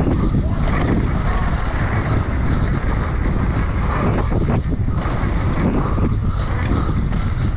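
Wind rushing over a helmet-mounted camera's microphone as a downhill mountain bike descends fast, with its tyres rolling over a dirt trail. The noise is steady and heavy in the low end, with a few short knocks from bumps in the middle.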